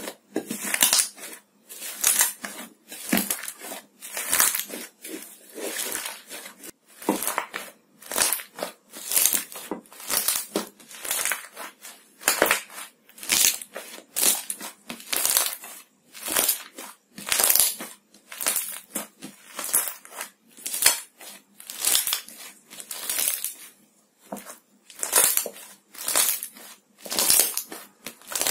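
Crunchy iceberg slime being pressed and squeezed by hand, its hardened crust crackling with each press, a crunch roughly every second.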